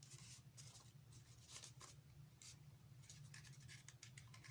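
Faint scraping and rustling of a small cardboard palette box being handled and worked open, in short irregular scratches over a low steady hum.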